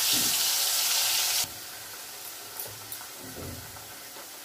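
Cumin, ginger and garlic paste sizzling in hot oil in a kadai. The sizzle is loud and hissy at first, then drops suddenly to a quieter sizzle about a second and a half in, with light stirring.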